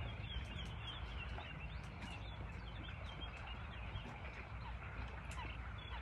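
Wild birds calling: a run of quick, high chirps in the first half and a few lower short calls later, over a steady low rumble.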